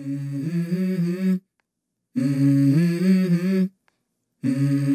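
Background music: a wordless hummed vocal line in three short phrases, each stepping up in pitch, with brief gaps of silence between them.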